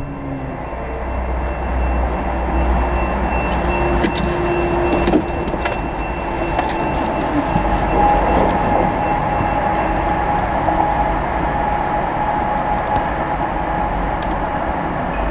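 Steady vehicle noise at an active railroad grade crossing, its gates coming down for an approaching train. A thin, steady high tone runs throughout, and a lower steady tone joins about six seconds in.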